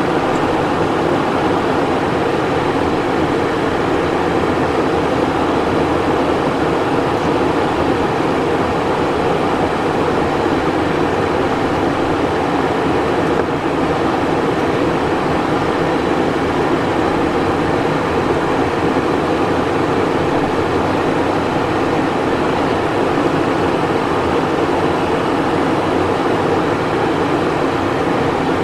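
Steady cabin noise inside the cockpit of a Cessna Citation Encore business jet in flight: a constant rush of airflow and twin turbofan engine noise, unchanging throughout.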